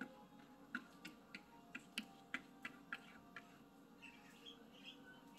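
A cat's paw tapping at a computer screen: a run of light, quick clicks, about a dozen in three and a half seconds, irregular in spacing and faint.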